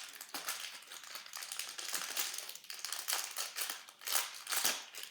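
Plastic packaging crinkling as it is handled and opened, in irregular crackly bursts, a couple of them louder near the end.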